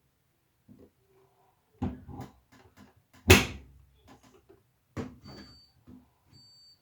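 Knocks and one loud bang of a door or lid being shut, then two short high-pitched electronic beeps near the end, typical of a washing machine's door being closed and its control panel being set.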